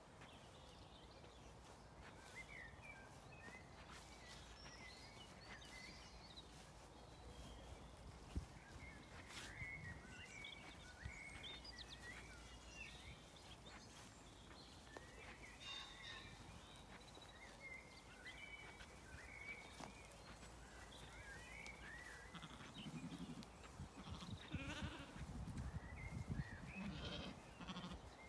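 Quiet flock of Zwartbles sheep grazing, with small birds chirping faintly throughout. In the last few seconds, sheep close by tear and chew grass in a burst of low rustling.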